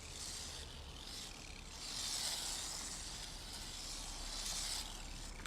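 Radio-controlled car running: a high hiss of its motor, drivetrain and tyres that swells about two seconds in and fades near the end.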